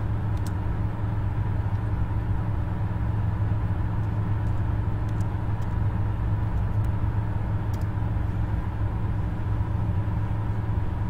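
Steady low background rumble and hum, with a few faint computer keyboard clicks as a command is typed.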